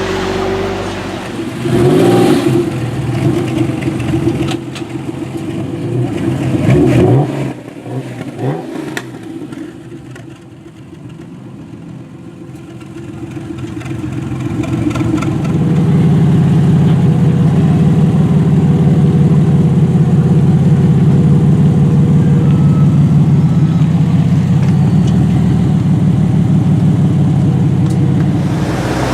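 TVR sports-car straight-six engines: a TVR Tuscan revved in sharp blips in the first several seconds, then a TVR Tamora running with a steady, loud exhaust note through the second half.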